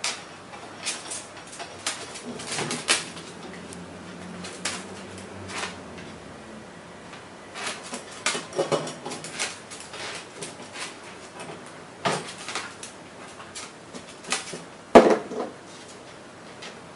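A miniature wire toy shopping cart rattling and clicking on a tabletop as a black-headed caique pushes it and handles small plastic toy groceries, with scattered taps and knocks. One louder knock comes near the end.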